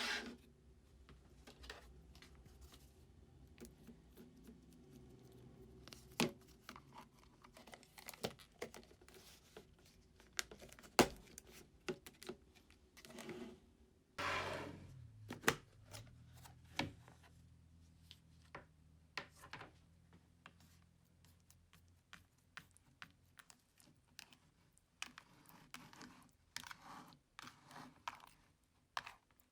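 Clear slime being worked and stretched by hand, making scattered sticky clicks and crackling pops, with a longer tearing rustle about fourteen seconds in.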